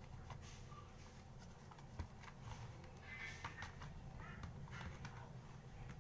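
Faint clicks and rubbing of the plastic casing of a Sony TC-40 cassette recorder being worked apart by hand, with one sharper click about two seconds in.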